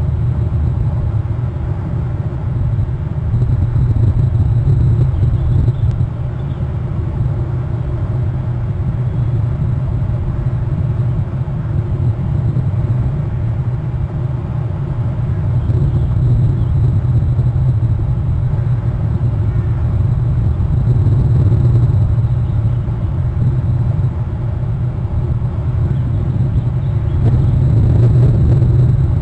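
Steady low rumble of wind buffeting the nest camera's outdoor microphone, rising and falling in strength.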